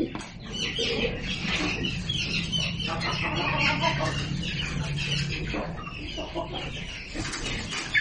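Domestic pigeons in a coop calling and moving about, with a busy jumble of bird sounds and a low steady hum through the middle few seconds.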